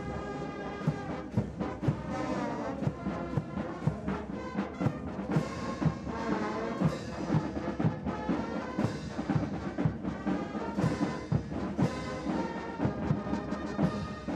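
Military brass band with drums playing a quick march: sustained brass melody over a steady drum beat of about two strokes a second.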